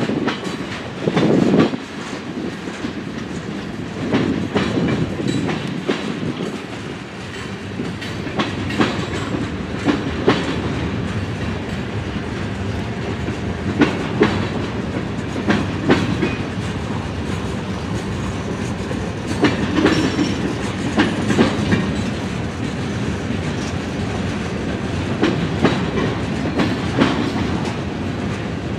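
Freight train cars rolling past, steel wheels clicking over rail joints in uneven clusters over a continuous rumble.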